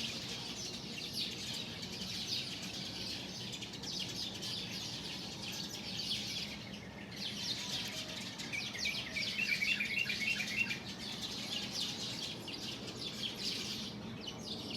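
A flock of small birds chirping, many quick calls overlapping as they leave their roost at dawn. A short run of repeated clearer notes stands out about nine to eleven seconds in.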